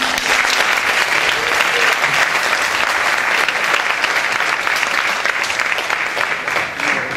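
Audience applauding: dense, steady clapping from a theatre crowd, beginning as the last note of the music dies away.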